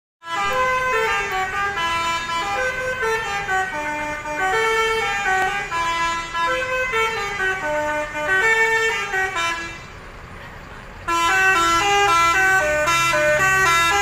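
Multi-tone bus "telolet" horns playing tunes of quick stepping notes. They drop away briefly about ten seconds in, then a louder horn tune starts a second later with a bus engine rumbling underneath.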